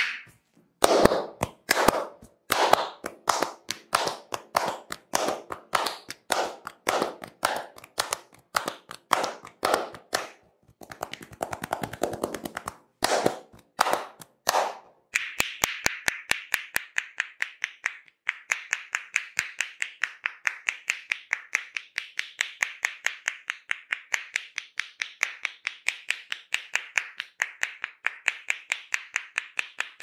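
Head-massage tapping: a barber's palms, pressed together, clap down on a person's head about twice a second, with a brief quick flurry midway. From about halfway on it turns into a fast, even run of sharper, higher clicking taps from the joined hands with loose fingers.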